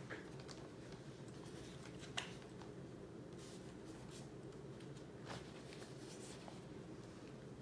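Faint scattered clicks and short scratchy rustles of colored pencils being handled, over a steady low hum.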